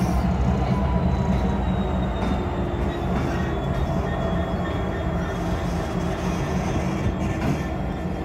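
A GB Railfreight Class 66 diesel locomotive's two-stroke V12 engine runs steadily with a deep throb as the locomotive moves slowly along, fading slightly as it draws away. A faint high squeal of the wheels on the rails sits above it.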